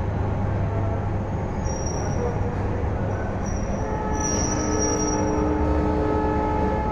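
Passenger train coaches rolling past along the platform, a steady rumble with steel wheels squealing on the rails. The squeal grows from about four seconds in into several shrill held tones at once.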